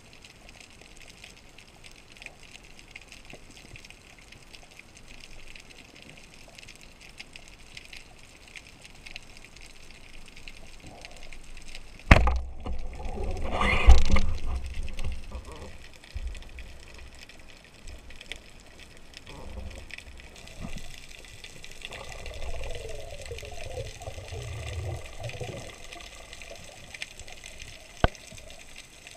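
Steady underwater hiss and crackle. About twelve seconds in, a speargun fires with a sharp crack, followed by a couple of seconds of loud rushing water. A single sharp click comes near the end.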